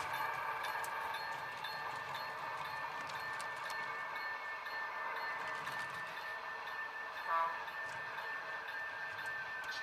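Model railroad freight train rolling slowly along the layout track, with a steady high whine and a light rolling rattle. A short, sharp tonal squeak sounds about seven seconds in.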